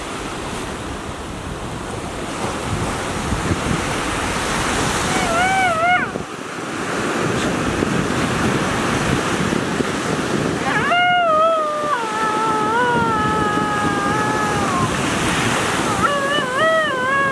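Ocean surf rushing and breaking steadily, with wind buffeting the microphone. A high, wavering melodic line comes in three times: briefly about five seconds in, held for several seconds a little past the middle, and again near the end.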